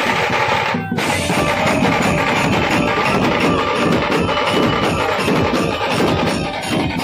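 Loud music with a strong drum and percussion beat, broken by a short drop about a second in.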